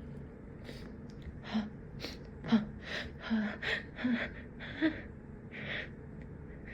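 A person's series of short, catching gasps, about nine in quick succession, some with a little voiced catch: the breathless build-up of a sneeze that is being held back.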